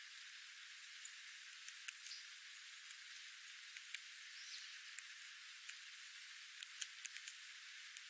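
Scrub jay pecking at seeds on a concrete edging: scattered sharp taps, with a quick run of them late on, over a steady high hiss.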